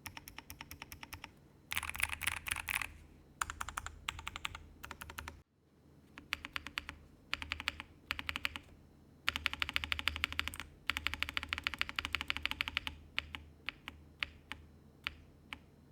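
Freya Ultra custom mechanical keyboard, with a PC and FR4 half-plate, full foam, Gateron Melodic switches and GMK Norse keycaps, being typed on. Fast runs of keystrokes come in bursts separated by short pauses. The sound briefly drops out about five seconds in, and near the end it slows to single, spaced key presses.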